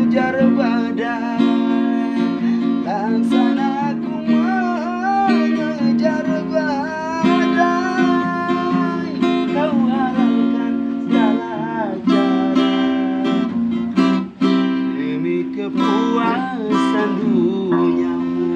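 Acoustic guitar strummed in steady chords under a sung melody.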